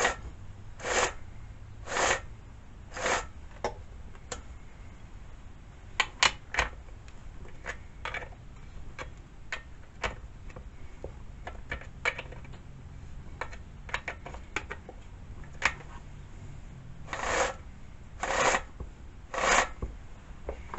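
Hand work on a chainsaw as a new bar and chain are fitted: short rasping strokes about once a second, then a run of sharp metallic clicks, then three more rasping strokes near the end.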